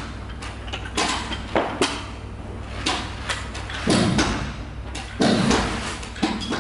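Carpet being worked onto gripper strips along a wall: several irregular thumps and knocks with scraping between them, the loudest about four seconds in, over a low steady hum.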